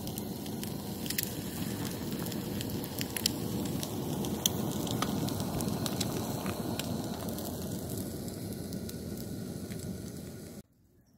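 Corned beef hash with hash browns, then an egg, frying in pans on a camp stove: a steady sizzle with scattered sharp pops. It cuts off abruptly near the end.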